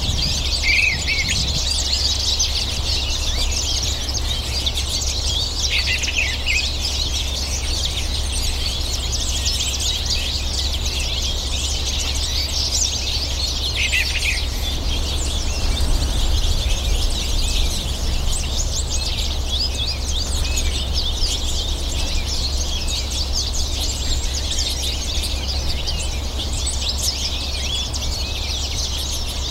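A flock of American goldfinches twittering and chirping non-stop, many birds calling over one another in a dense high chatter. A steady low rumble runs underneath.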